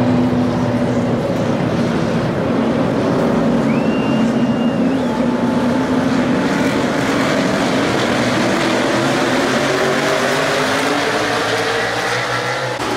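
A field of NASCAR Cup Series stock cars going past two-wide, their V8 engines running together in a loud, steady sound.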